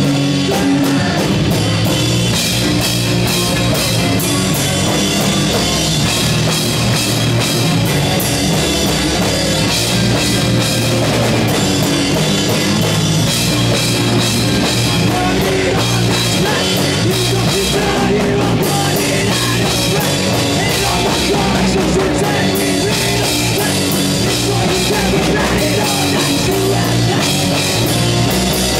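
Live rock band playing loud and continuous: drum kit with frequent cymbal crashes over distorted guitar and bass.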